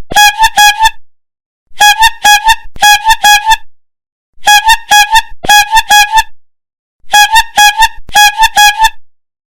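Street vendor's hand-squeezed bulb horn tooting the call of a cilok, pentol and sausage seller: one-pitched toots in quick bursts of about six, each burst about two seconds long, with short pauses between bursts.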